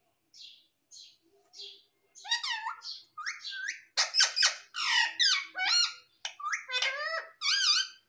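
Indian ringneck parakeet vocalising: a few faint, short scratchy sounds, then from about two seconds in a quick run of warbling, whistled chatter that swoops up and down in pitch, growing loud from about four seconds.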